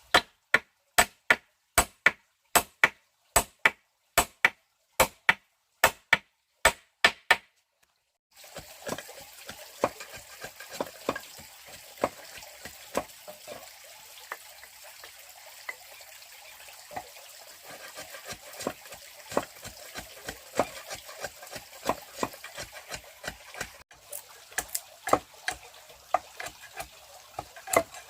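A blade chopping wood: a fast, even run of sharp strokes, about two a second, that stops about seven seconds in. After a short pause comes a steady hiss with many small scattered clicks and taps.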